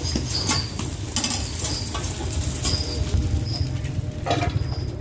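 Metal spatulas clicking and scraping against a flat iron pan as bột chiên (rice-flour cake cubes) fries, with a light sizzle. The clicks are irregular, over a steady low rumble.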